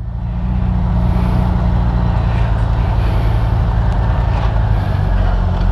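Honda Gold Wing GL1500's flat-six engine running at a steady speed, with a steady rushing noise over it.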